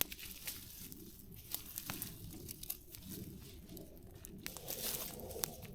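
Faint, irregular crackles and clicks as a campfire's burning coals and embers are pushed along the ground to a new spot.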